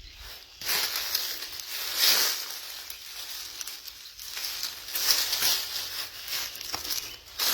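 Footsteps rustling and crackling through dry leaves and twigs, starting about half a second in, in uneven surges.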